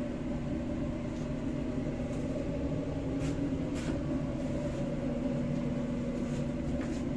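Steady machine hum with a constant low drone and a rumble underneath, and two faint clicks about halfway through.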